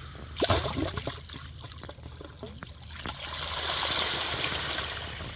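Discharge water from two sump pumps running out of the outlet and spilling over rocks: a steady trickling stream that swells louder for a couple of seconds about three seconds in. A few short knocks about half a second in.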